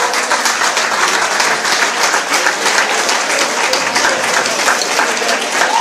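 Audience applauding, a dense and steady clapping throughout.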